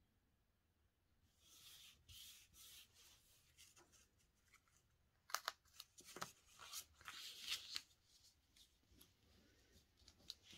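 Quiet handling of a paper journaling card and washi tape: soft rubbing and rustling as the tape is pressed down along the card's edge, then a run of sharp paper crackles and taps about halfway through as the card is picked up and turned over.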